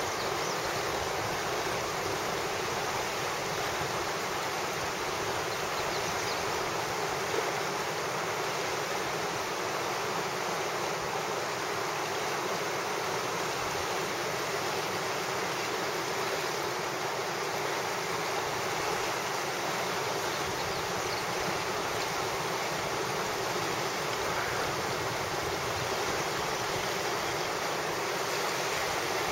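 River rapid rushing: a steady, unbroken noise of whitewater.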